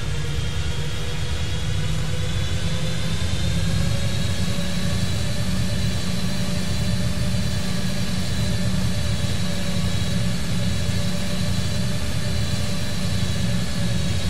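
Steady jet airliner cockpit noise on approach: a low rumble of engines and airflow, with faint whines that rise slightly in pitch over the first few seconds and then hold steady.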